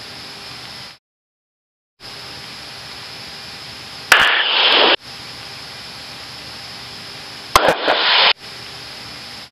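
Aircraft intercom and radio audio hiss that switches fully off and back on about a second in and cuts off again at the end. Two short loud bursts of noise, each opening with a sharp click, break in about four seconds in and again near seven and a half seconds.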